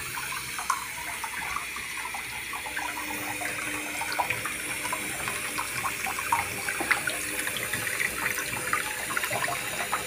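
Bathroom sink tap running steadily into cupped hands, with many small irregular splashes as a young parrot is washed under the stream.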